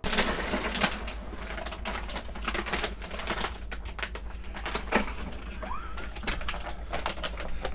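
Packages of dog food being handled out of a cooler of ice and into a refrigerator: a run of irregular plastic rustles, knocks and clatters, the sharpest about five seconds in. A short rising squeak comes near six seconds, over a low steady hum.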